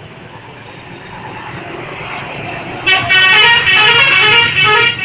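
Road noise grows louder. About three seconds in, a bus's telolet horn plays a loud melody of several quickly changing tones.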